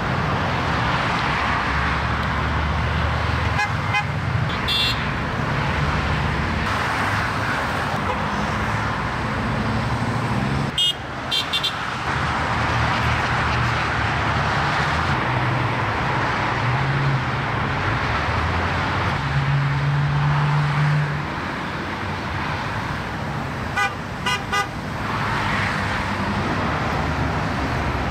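Steady highway traffic passing below: tyre hiss and engine noise from a stream of cars. Car horns toot over it in short beeps a few times, with a quick run of several toots in the second half.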